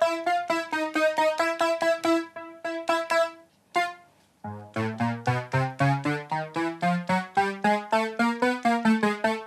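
Roland Alpha Juno-2 analogue synthesizer playing short notes as keys are pressed one after another, about four or five a second, some louder than others. After a short pause about three and a half seconds in, a run of lower notes climbs in pitch. The keys are being tested for touch sensitivity, which some of them lack: those notes play very loud whatever the touch.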